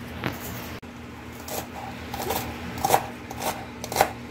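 Kitchen knife chopping pak choy stems on a plastic cutting board: a run of about five sharp knife strokes, one every half second or so, starting about a second in.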